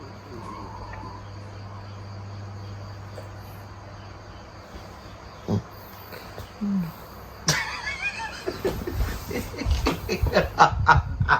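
Insects chirping steadily over a low hum. About seven and a half seconds in comes a sharp click, then a quick run of short laughs.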